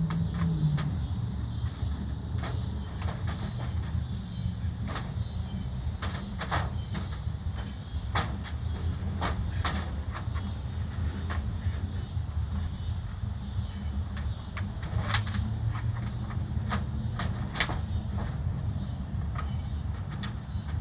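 Vinyl siding being worked on by hand: scattered sharp clicks and knocks, irregularly spaced, over a steady low rumble.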